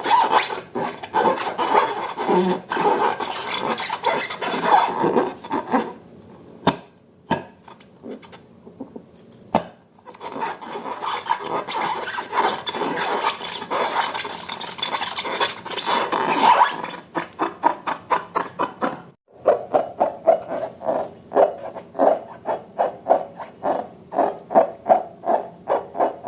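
Hands rubbing and squishing slime and rubber balloons: a continuous wet rubbing and rasping, which near the end turns into a rhythmic kneading of about two strokes a second.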